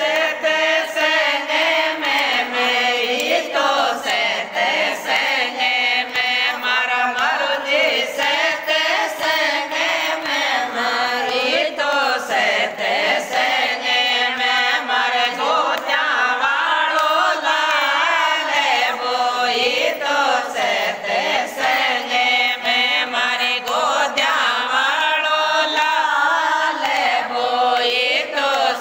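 Group of women singing a Hindi devotional bhajan to Krishna together, a chant-like folk melody with steady rhythmic hand clapping.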